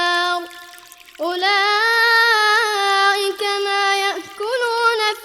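Quran recitation in a drawn-out melodic style: a single high-pitched voice holds long, slightly wavering notes, with a brief pause for breath about half a second in before the next long phrase.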